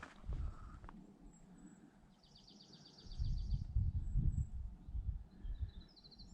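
A songbird singing a rapid trill of evenly spaced notes lasting about a second and a half, with a few faint high chirps. Low buffeting noise on the microphone rises about halfway through and is the loudest sound.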